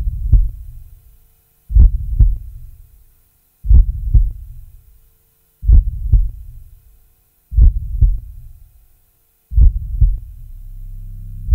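Heartbeat sound effect on the film's soundtrack: a slow, deep double thump, lub-dub, about every two seconds. Near the end a steady low droning tone comes in beneath it.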